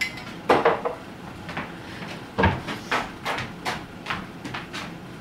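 A run of sharp knocks and thumps on a wooden stage set, with loud ones about half a second in and about two and a half seconds in, then lighter, evenly spaced knocks roughly three a second.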